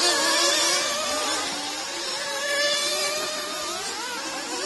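Several 1/8-scale nitro RC buggy engines whining at high revs, their pitches rising and falling independently as the cars accelerate and back off.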